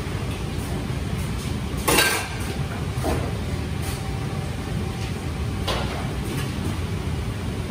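Steady low rumble of a commercial kitchen, with sharp metal clanks of pans and utensils about two seconds in, again about a second later and near six seconds; the first clank is the loudest.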